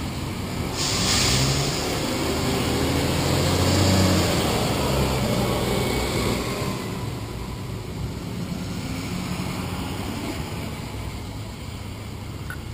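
Garbage truck's diesel engine pulling away and passing close by, with a short hiss about a second in; the rumble fades after about six seconds into lighter street traffic.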